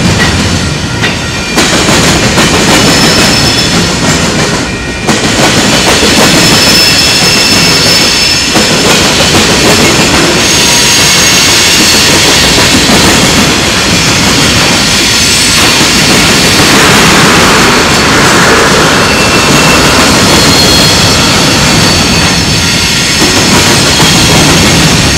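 Freight train tank cars and covered hoppers rolling past, their steel wheels clattering over the railroad diamond crossing, loud and continuous. Thin high wheel-squeal tones come and go.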